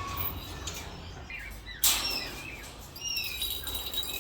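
Caged parrots giving short chirps and whistles, with a single sharp clack a little under halfway through.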